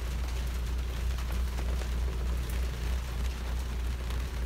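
Wind buffeting the microphone on the open deck of a sailing yacht: a loud, steady low rumble that swells and dips with the gusts.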